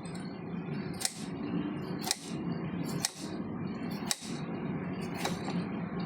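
Sharp clicks about once a second over a steady background noise, evenly spaced, five or so in a row.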